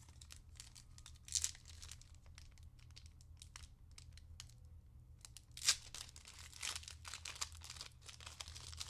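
A hockey trading card pack wrapper being torn open and crinkled by hand: a short tear about a second and a half in, a louder tear a little past halfway, then a run of crinkling.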